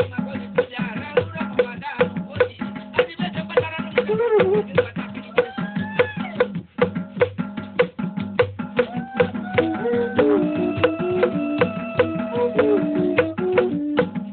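Traditional Igbo dance music: drums, rattles and wood-block-like strikes keep a steady, quick beat. Over it a melody line rises and falls, with held and stepping notes in the second half.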